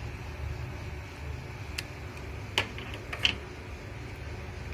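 A few light clicks and taps from handling a face-scrub jar and its packaging, three sharp ones in the second half, over a steady low hum like a fan or air conditioner.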